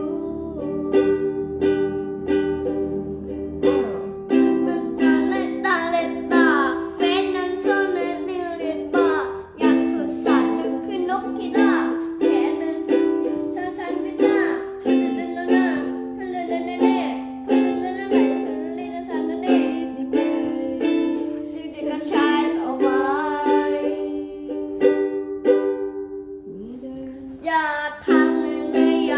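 A voice singing a Thai pop song over strummed acoustic chords, with a short break in the singing near the end while the strumming carries on.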